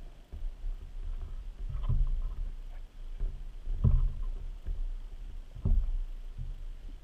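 Underwater sound picked up by a camera mounted on a speargun: a steady low rumble of water moving past the housing, with a dull knock about every two seconds as the gun is moved up to the target.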